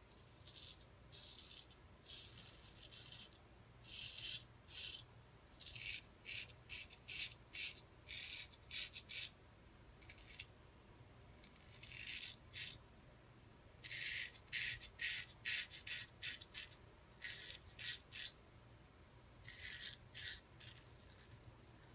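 Vintage Henckels 415 straight razor scraping through lathered stubble on the cheek: runs of short, quick, high rasping strokes with pauses between runs. The edge is one its owner honed himself and judges could have been sharper.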